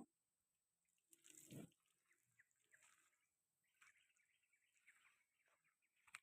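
Near silence, with one faint dog bark about a second and a half in and a short click near the end.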